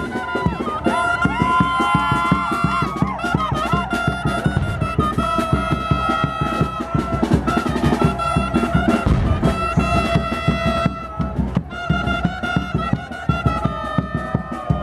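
Chirimía band playing: brass horns carry a melody in long held notes over steady, driving drumming.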